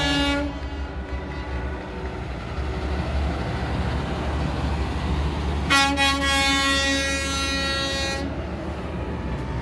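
Semi trucks driving past with their diesel engines running. A multi-tone air horn blast ends about half a second in, and another long blast sounds for about two and a half seconds past the middle.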